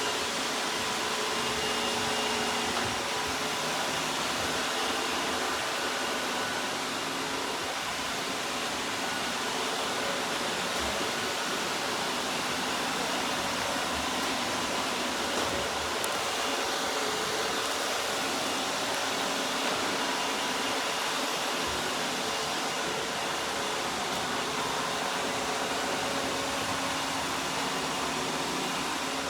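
iRobot robot vacuum running: a steady whirr of its suction fan and brushes, with faint motor whine held at an even pitch.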